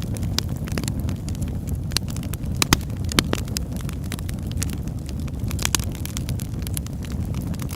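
Wood fire crackling: many sharp snaps and pops over a steady low rumble of burning flames, with a couple of louder pops a little before the middle.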